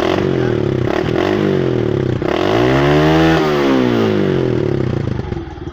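Kawasaki Fury 125 motorcycle engine being revved: a few quick throttle blips, then a longer rev that climbs and falls back, settling to idle near the end.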